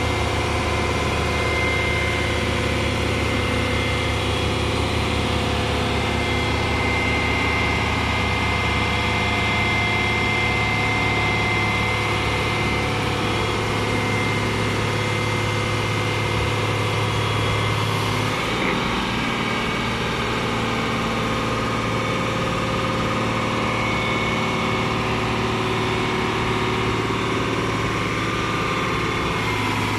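Heavy diesel engine running steadily at idle, with a thin steady high whine over the low drone. About eighteen seconds in, the low drone shifts slightly in pitch.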